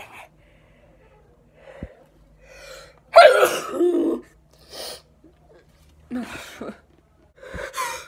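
A woman's sneezing fit: a few quieter breaths, then one loud sneeze about three seconds in, then more short breaths through the end as the next sneeze builds. She is sneezing into her hand.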